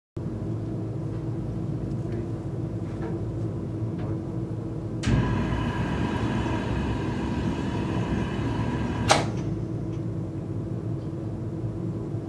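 Flash-fire mannequin test burners igniting about five seconds in with a sudden rush of flame and steady whistling tones, burning for about four seconds and cutting off with a sharp snap. A steady low hum runs underneath.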